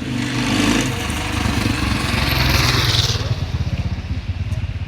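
A motor vehicle engine running close by, with a broad rushing noise over the first three seconds, then an even, rapid low throb.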